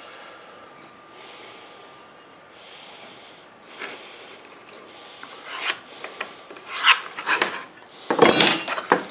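Soft scraping strokes of a pencil marking lines along a straightedge on a wooden board. From about four seconds in come scattered knocks and clicks, and the loudest clatter, just after eight seconds, comes as a metal straightedge and tools are picked up off the bench.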